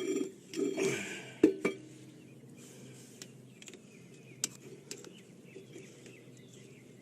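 Metal brake parts and tools being handled and knocked together while working on a brake caliper. A few knocks and short scrapes come in the first two seconds, with a sharp metallic clink about a second and a half in, then faint light taps.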